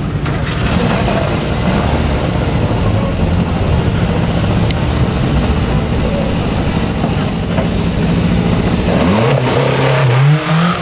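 Renault 5 Alpine rally car's engine running as the car rolls off the finish ramp and passes close by, rising in pitch as it accelerates near the end.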